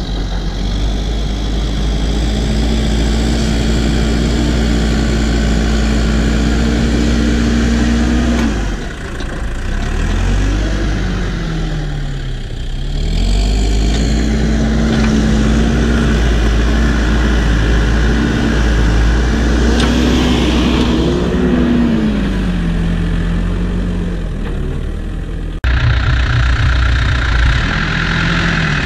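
Diesel engine of a New Holland B95 backhoe loader running at working revs while it pushes dirt with its front loader bucket. The engine note sags and recovers twice, as it lugs under load. Near the end the sound switches abruptly to a closer, rougher engine note.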